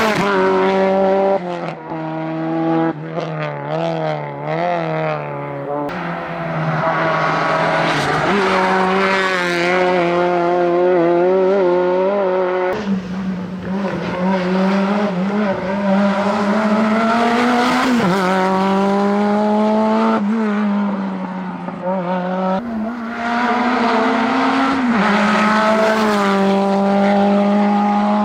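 Rally car engines at full throttle, revving high, with the pitch climbing and dropping through gear changes and lifts for corners.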